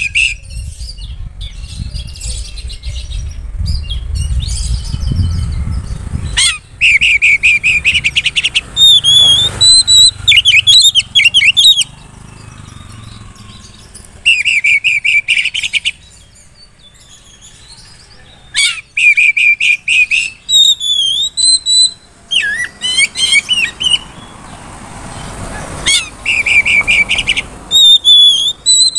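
Oriental magpie-robin singing loudly and at length. Bursts of rapid trills about a second and a half long come back every few seconds, and between them run slurred whistled notes and quick chattering phrases.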